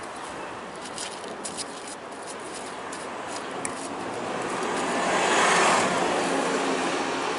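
A car passing on the street: its tyre and engine noise swells to a peak about five and a half seconds in, then fades. A few light taps sound about a second in.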